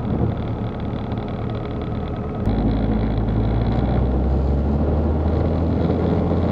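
UL Power UL350i four-cylinder aircraft engine and propeller heard from inside the cabin, running steadily during the taxi onto the runway. It becomes suddenly louder and deeper about two and a half seconds in as power comes up toward takeoff.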